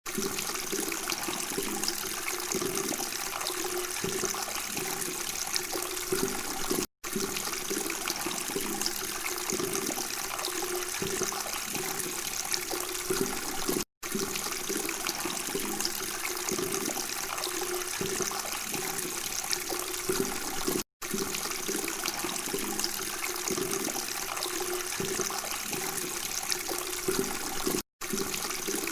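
Steady babbling, trickling water, cutting out for a split second about every seven seconds.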